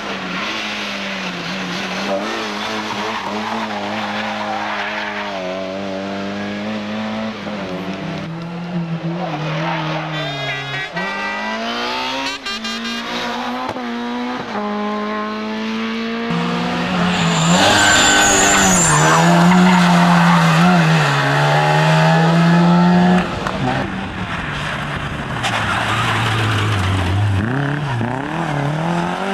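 Competition car engines revving hard, the pitch climbing and falling again and again through gear changes, with tyre noise. It gets louder for several seconds past the middle, then drops off suddenly.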